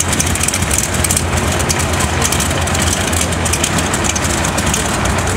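Modified multi-engine pulling tractor's supercharged engines running at a loud, steady level while hooked to the weight-transfer sled, with no revving.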